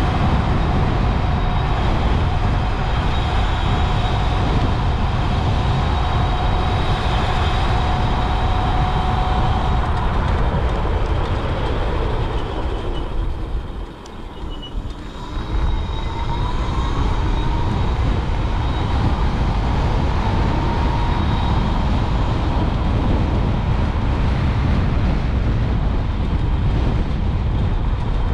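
Electric motorcycle riding at speed: wind buffeting the microphone over a steady high motor whine. About halfway through the wind and whine drop away briefly as the bike slows, then come back with a rising whine as it speeds up again.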